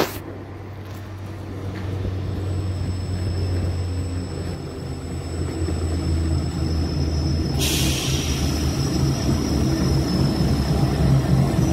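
A Class 66 diesel-electric freight locomotive's two-stroke V12 engine runs with a steady low throb, growing louder as it draws a container train closer. A short hiss comes about eight seconds in.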